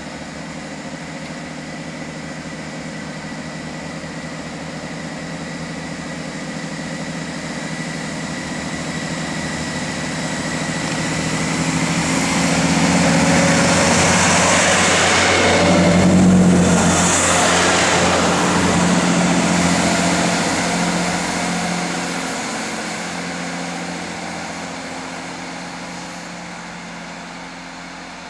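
Class 165 diesel multiple unit pulling away from a station, its underfloor diesel engines working hard as it accelerates. It grows steadily louder, peaks with a rush of wheel and engine noise a little past halfway as it passes close by, then fades as it draws away.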